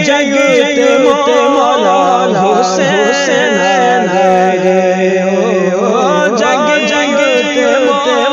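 Punjabi devotional song in praise of Imam Hussain: a solo voice singing long, wavering melismatic runs over a steady drone.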